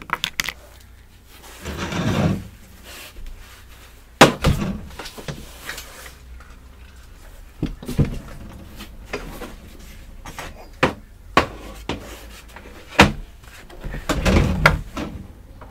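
Scattered clicks, knocks and dull thumps of a power cord and a plastic ultrasonic cleaner being handled on a tabletop; the sharpest knock comes about four seconds in. The cleaner is not yet switched on.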